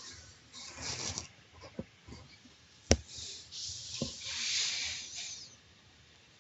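A single sharp click about three seconds in, set among soft rustling, breath-like hiss close to the microphone and a few faint ticks.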